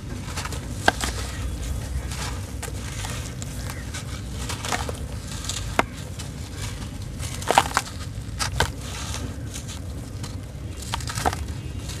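A soft, dry sand-cement chunk being crushed and crumbled by hand. Grainy crunching and crackling runs throughout, broken by a few sharper snaps as pieces break off, the loudest about seven and a half seconds in.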